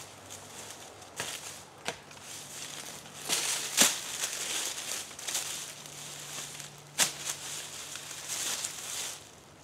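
Footsteps crunching through dry leaf litter and twigs, with a few sharp cracks, the loudest about four seconds in and another about seven seconds in.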